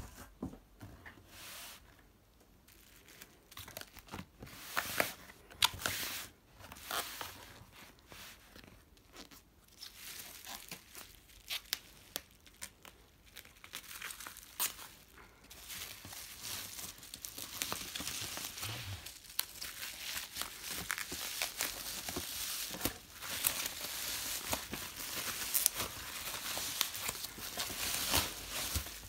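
Plastic bubble wrap crinkling and rustling as a wrapped package is handled and pulled out of a cardboard box, with scattered sharp crackles and clicks at first, then denser continuous crinkling from about a third of the way in.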